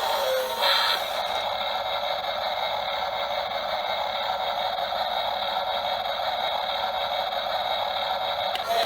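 Radio-controlled model excavator running steadily under load, its electric motors making a continuous mechanical whir.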